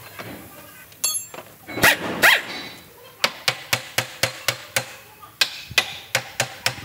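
Hand hammer striking metal on a wheel-loader transmission: one ringing metal clang about a second in, then rapid even blows about four a second from about three seconds on. Two loud barks, like a dog's, come just before two seconds and just after.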